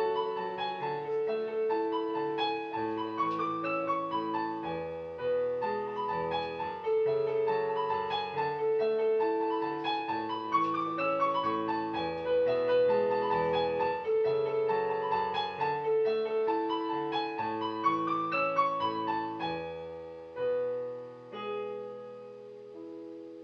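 Piano music with rolling arpeggio runs, thinning to a few fading notes near the end.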